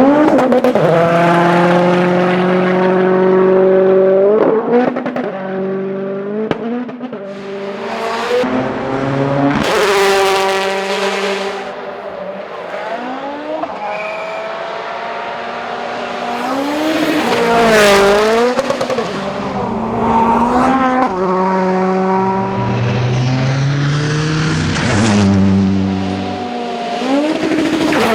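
Several World Rally Cars running flat out on a gravel stage, their turbocharged engines revving up through the gears in repeated climbs and breaks. One car passes close about eighteen seconds in, its engine note dropping sharply as it goes by.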